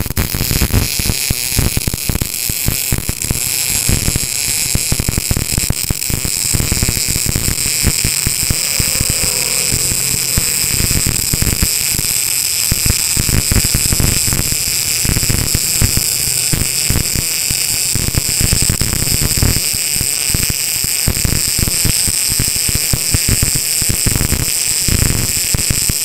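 Gas-shielded MIG welding arc from a Tenya NBC-288 welder, crackling steadily without a break as a corner weld is run on thin steel angle at a turned-down power setting.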